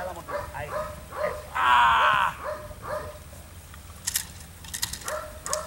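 Belgian Malinois barking and yelping in short repeated bursts, with one long, loud bark about two seconds in; a few sharp clicks near the end.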